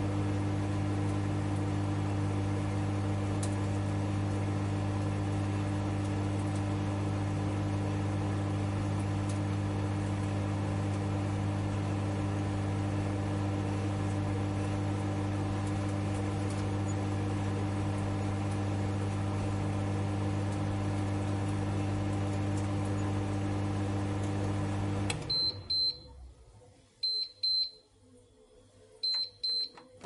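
Microwave oven running with a steady low hum, which cuts off with a click near the end, followed by three short high beeps about two seconds apart signalling that the cooking cycle has finished.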